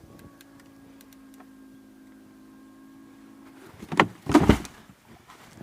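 A steady motor whine for about three and a half seconds, then a loud thump with rustling about four seconds in.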